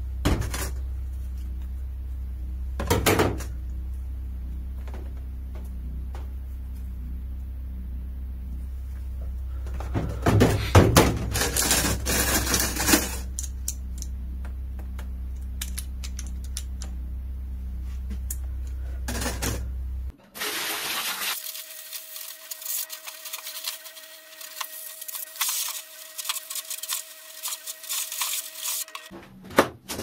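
Metal clinks and clatter over a steady low hum, with a denser run of clattering partway through; about two-thirds of the way in the hum stops abruptly and a busier clatter with a steady tone takes over.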